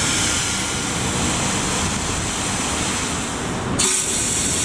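Pressure washer running, with high-pressure water spraying in a steady hiss; the sound changes abruptly about four seconds in. The spray includes water escaping sideways from a blown O-ring in the quick-connect coupler.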